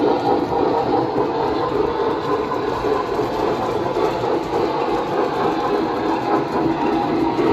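O scale model train running steadily on the layout's track: a continuous rolling rumble of metal wheels on the rails, with the whir of the locomotive's motor.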